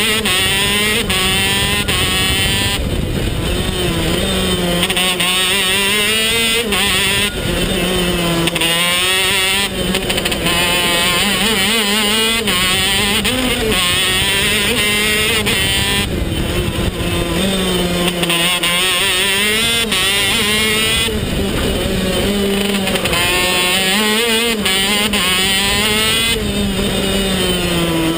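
A KZ2 shifter kart's 125cc two-stroke engine is heard up close at racing speed. Its pitch rises under acceleration and drops back again and again through the corners of the lap.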